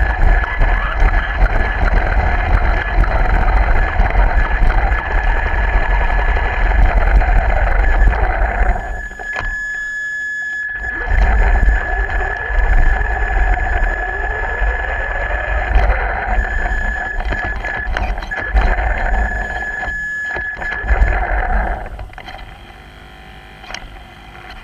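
Radio-controlled car running, heard on board: a steady high motor whine over the rumble of its wheels on the concrete floor. The rumble drops out briefly about nine seconds in, and the sound fades out near the end.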